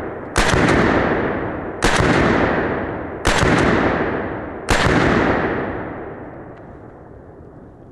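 Four single shots from an AR-15 rifle firing 5.56 mm M855 Green Tip rounds, about a second and a half apart, each sharp crack trailing off in a long rolling echo; the last echo fades away over about three seconds.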